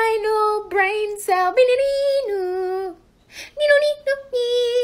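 A person singing a short melody in a high voice: held notes that step up and down, with a short break about three seconds in.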